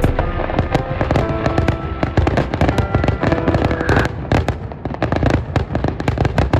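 Fireworks going off: a dense, rapid run of crackles and pops, with music fading out in the first couple of seconds.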